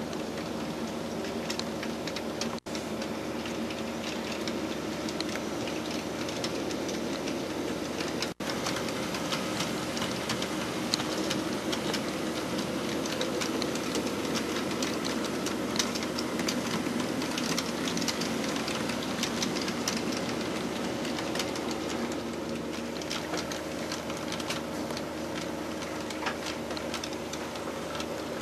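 HO scale model freight train rolling along its track: a steady motor hum with rapid fine clicking of the wheels over the rail joints. The sound cuts out for an instant twice near the start.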